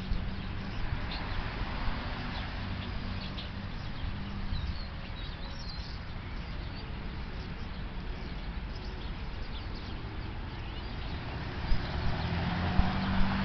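Steady background noise with a low hum under it, and faint short bird chirps now and then. A couple of soft knocks come near the end.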